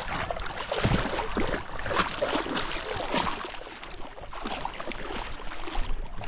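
Water splashing and lapping, with wind buffeting the microphone.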